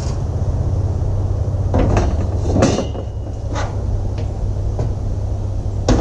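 A few sharp knocks and clanks from climbing a ladder and handling metal chimney pipe, over a steady low rumble.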